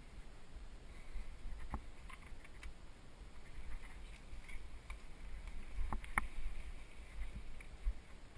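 Mountain bike rolling over a bumpy dirt trail, picked up by a camera on the rider: a steady low rumble of wind and ground bumps, with a few sharp clicks and rattles from the bike, notably around two seconds in and again around six seconds.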